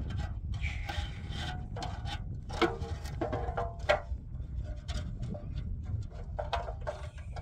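Rubbing and scraping strokes inside a large metal basin as hands work a cloth around it, short and uneven, over a steady low rumble.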